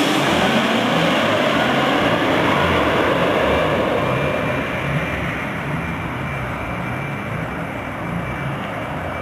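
Jet engines of a twin-engine airliner that has just flown low overhead with its gear down, their roar fading as it moves away; the high hiss drops off within the first second, and the low rumble dies down slowly.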